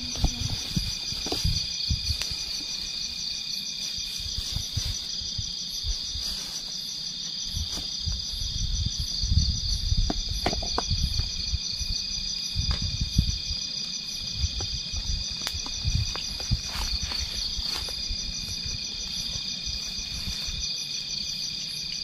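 Night insects, crickets among them, singing in a steady high-pitched chorus of several continuous trills, one of them pulsing quickly. Under it run irregular low rumbles and a few scattered clicks.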